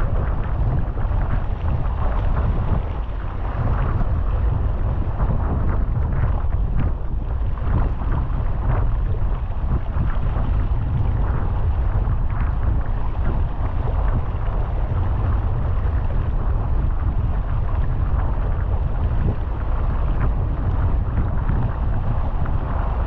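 Wind buffeting the microphone with a steady low rumble, over a rushing hiss of water and boat noise while sailing.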